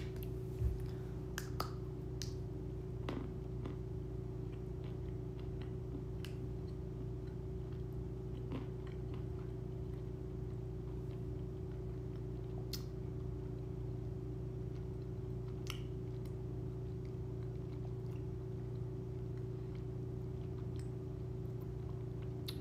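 A person quietly chewing chocolate, with a few faint scattered mouth clicks, over a steady low hum.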